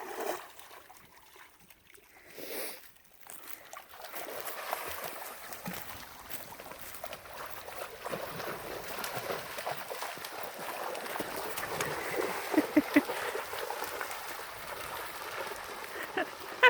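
Shallow creek water splashing and trickling, starting about four seconds in and continuing steadily, with a few short louder splashes near the end.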